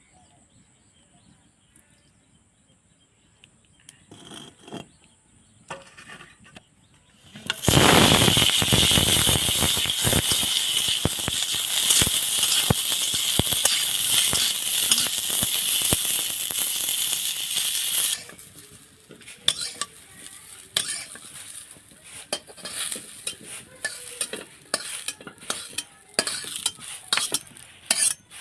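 Food frying in hot oil in a pan: a loud sizzle starts suddenly about a quarter of the way in, as if ingredients were dropped into the oil, and cuts off abruptly about ten seconds later. Before and after it, a utensil clicks and knocks against the pan as the food is stirred.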